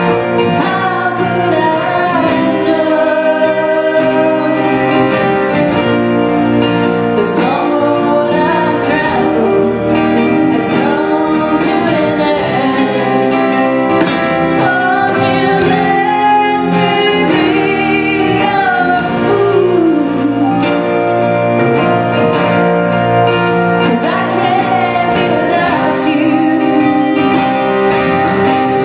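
A woman singing a song live with a band of acoustic guitar, electric guitar, bass, keyboard and drums.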